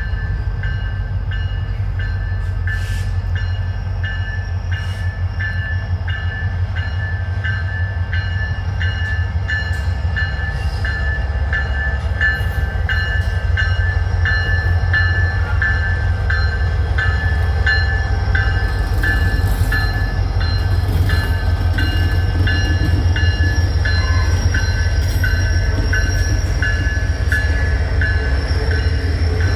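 An EMD SD60E diesel-electric locomotive's 16-cylinder 710 prime mover rumbles as it approaches and passes, growing louder about halfway through. Its freight cars then roll by behind it. Over the rumble a high, bell-like ding repeats steadily about twice a second.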